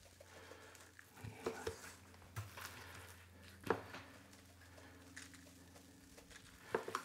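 Faint sounds of seasoning beef ribs: dry rub shaken from a shaker onto the meat, and a gloved hand patting and turning the ribs on a plastic cutting board. A few soft taps come through, the sharpest a little over halfway through.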